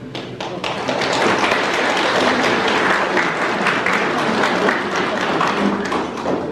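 Audience applauding at the end of a song, a dense steady clapping that thins out near the end.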